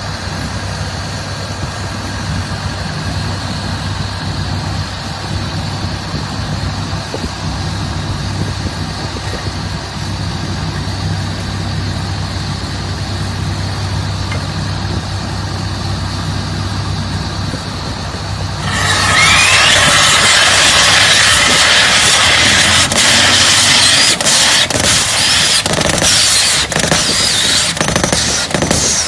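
A drill rig with a Yonda YDR30A hydraulic rotary head running steadily, its engine and hydraulics humming with a faint high whine. About two-thirds of the way through, drilling starts with a sudden loud, noisy rattle of rapid hammer strikes, typical of down-the-hole drilling.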